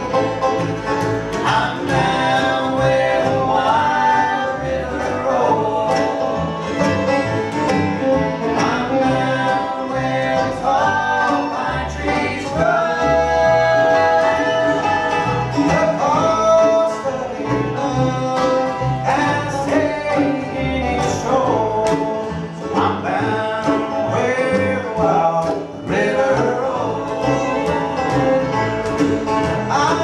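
Live bluegrass band playing: fiddle, five-string banjo, acoustic guitar, mandolin and upright bass together.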